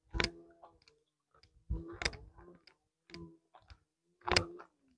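A few quiet, sharp clicks or knocks at irregular intervals, about five in all, the strongest near the end.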